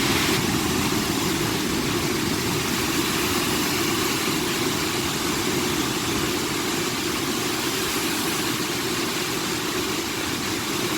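Lembah Anai waterfall in flood: a loud, steady, unbroken rush of heavy falling water.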